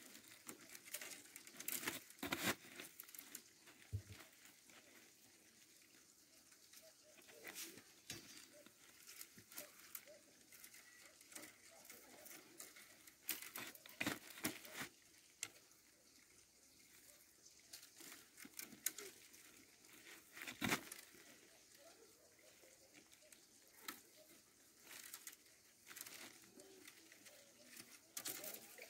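Split-cane strips rustling and scraping as a basket base is woven by hand, with a few sharper clicks as the stiff spokes knock together. The sounds are faint and scattered.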